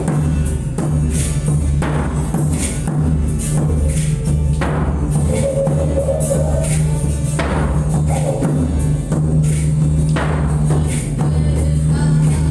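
Didgeridoo playing a steady low drone with a pulsing rhythm, accompanied by drum and jingling percussion strikes.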